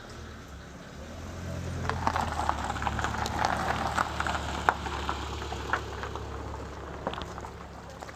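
A vehicle's engine running as it backs up close by, growing louder from about two seconds in and fading toward the end, with scattered crackling under the wheels.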